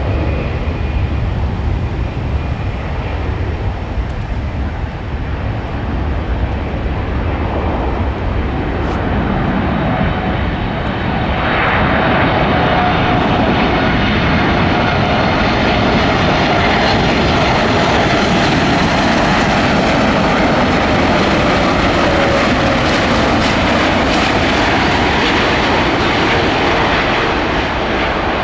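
Boeing 747-8F's four GEnx turbofan engines rumbling steadily as the jet lands. About twelve seconds in the sound jumps louder and stays loud, with a slowly falling whine.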